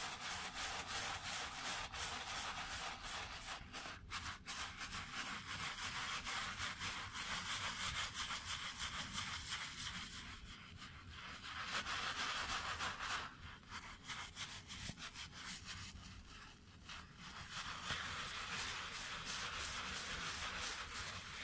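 A bristle shoe brush, wet with warm water and shoe-cleaning solution, scrubbing a sneaker's upper in circular motions: a rapid, scratchy brushing that eases off for a few seconds past the middle.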